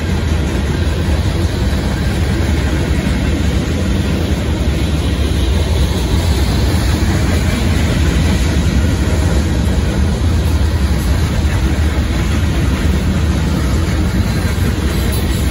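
Union Pacific freight train's hopper cars rolling past over a road crossing: a steady, loud rumble of steel wheels on rail that does not let up.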